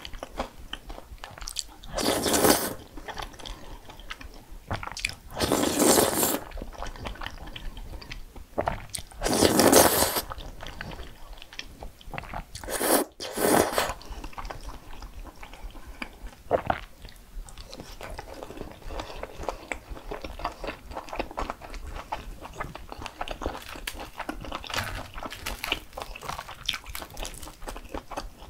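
Close-miked eating: loud crunching bites into crispy food, five of them in the first half, then steady chewing with small clicks.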